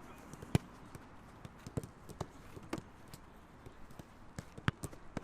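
Footballs being kicked and passed in a training drill: irregular sharp thuds of boot on ball, the loudest about half a second in and again near the end, with fainter taps and footsteps between.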